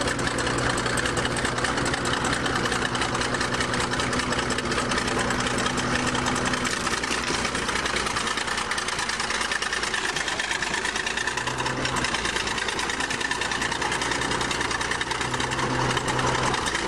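Old crawler bulldozer's engine running steadily as the dozer moves forward in gear and climbs up onto a car.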